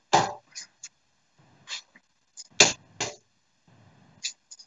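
A steel-tip dart thudding into a Winmau Blade 5 bristle dartboard about halfway through, among a few other short knocks and clicks.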